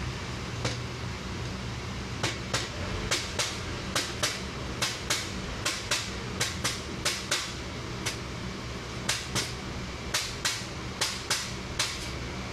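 A mallet knocking on the end of a chrome motorcycle slip-on muffler, about two dozen sharp knocks, often in pairs, with short pauses between groups. The muffler is being tapped along the front pipe into position.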